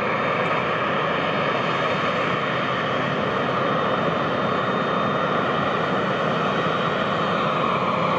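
Jet engines of a Boeing 787-9 Dreamliner at taxi power, a steady rushing hum with a high whine held on one pitch.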